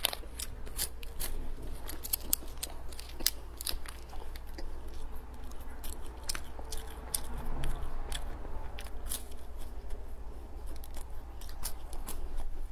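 Close-up chewing of sachima, a fried-dough snack: a steady run of small crunching clicks and mouth sounds over a low steady hum.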